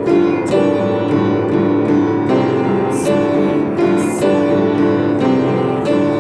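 Piano music: a continuous flow of notes and chords at an even loudness.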